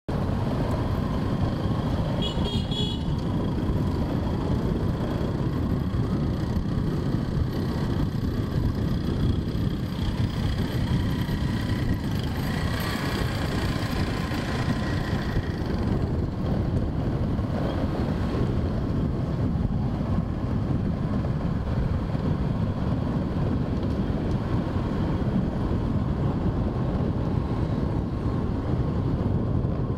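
Traffic noise heard from a moving motorbike: a steady low rumble of engine and road noise, with a short horn toot about two seconds in.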